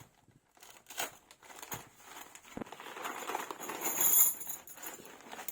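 Handling of metal tent pegs and their fabric bag: a few light clicks and knocks, then rustling and crinkling in the second half.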